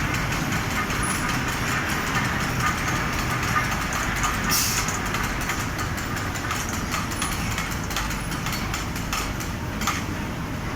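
Large fabric spreader machine running: a steady mechanical rumble and hum with frequent small clicks and knocks, and a short hiss about four and a half seconds in.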